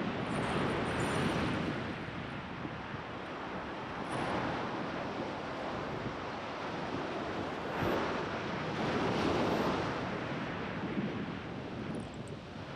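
Wind buffeting the microphone over ocean surf washing against the rocks: a steady rush that swells a few times.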